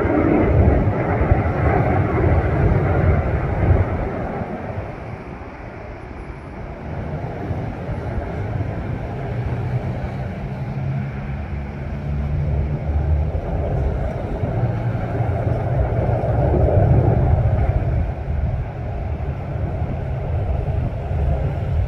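Steady low engine rumble that swells and fades. It is loudest at first, dips a few seconds in and swells again past the middle, where a steady low hum stands out.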